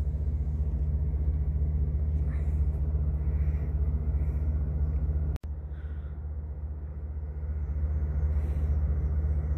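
A steady low mechanical rumble, made of several constant low tones, that cuts out for an instant a little over halfway through.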